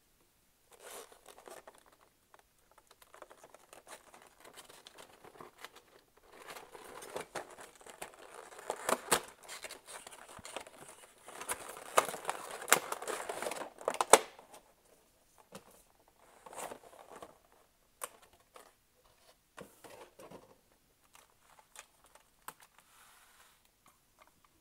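Cardboard box packaging being opened and handled: rustling and crinkling that grows loudest through the middle, with several sharp snaps and clicks as the box is pulled apart. After that come only scattered light taps and handling noises as the contents are lifted out.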